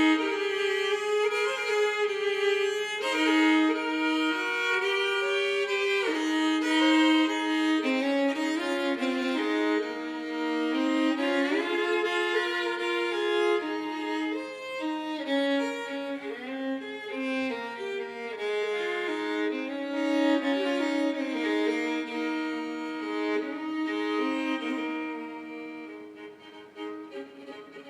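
Solo fiddle in sawmill tuning, its lower two strings raised a whole step so that the strings ring together, playing a slow melody over sounding open strings. The playing dies away near the end.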